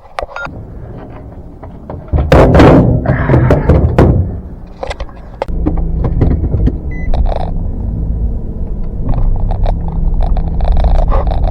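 A thunk, then a vehicle engine starting about two seconds in and settling into a steady low running hum, with a few knocks and scrapes over it.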